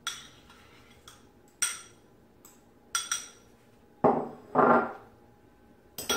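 A metal fork scraping and clinking against a small white bowl as mashed banana is scraped into a mixing bowl: several sharp, ringing clinks, with two louder, duller knocks about four seconds in as the small bowl is set down on the counter.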